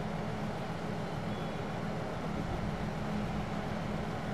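Steady engine drone with a constant low hum, holding the same level throughout.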